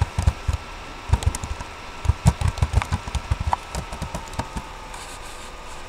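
Computer keyboard typing: rapid runs of keystrokes, thickest in the middle and thinning out near the end.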